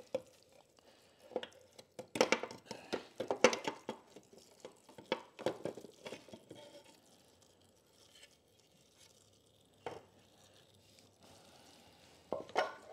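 Metal clutch-side crankcase cover of a Kawasaki KD175 two-stroke engine being worked loose and pulled off: irregular metallic clinks, scrapes and clanks, loudest in the first half, a lone knock about ten seconds in and a short rattle near the end.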